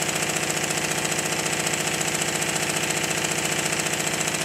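A model Stuart triple expansion steam engine running steadily on compressed air. Its exhaust beats in a rapid, even rhythm with a constant air hiss, and it runs smoothly.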